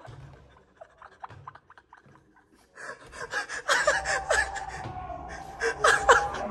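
A man screaming in shock and gasping, breaking into laughter; the outburst starts about three seconds in after a quiet stretch with a few faint taps.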